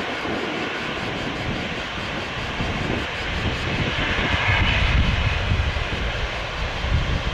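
Boeing 777-300ER's twin GE90-115B turbofan engines running at low power as the airliner taxis: a steady jet whine over a rumble. The whine grows louder about four to five seconds in.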